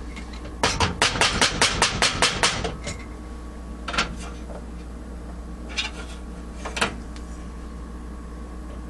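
A utensil knocking against a pot: a quick run of about ten taps, then three single knocks spaced out.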